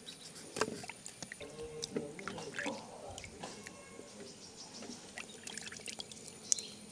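Small splashes and drips of water as bilimbi fruits are rinsed and rubbed by hand in a steel pot of water, with faint music underneath.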